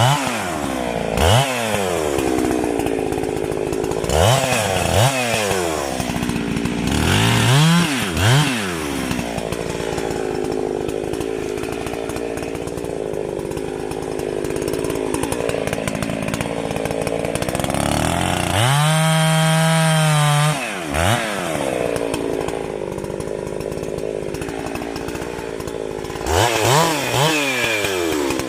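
Two-stroke chainsaw idling and being blipped: its pitch swings up and back down several times in the first few seconds and again near the end. About two-thirds of the way in it is held at full throttle for about two seconds.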